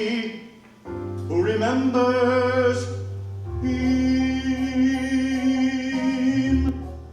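Male voice singing the end of a show tune over piano accompaniment, holding a long final note; the music fades right at the end.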